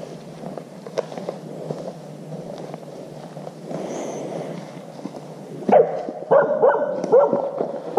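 A dog barking and whining in a run of sharp yips, starting about three-quarters of the way in. Before it there is a rustling hiss with scattered clicks.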